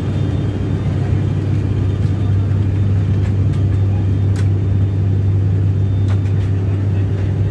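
Steady drone of an ATR 72-600's turboprop engines and propellers heard from inside the passenger cabin in flight, dominated by a strong low hum.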